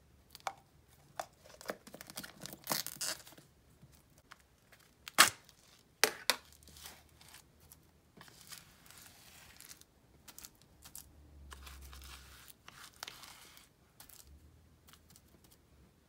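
Slime being handled and tipped out of plastic containers into a glass bowl: irregular crackly tearing and crinkling as the fluffy slime pulls apart, with sharp clicks and knocks from the containers, the loudest two about five and six seconds in.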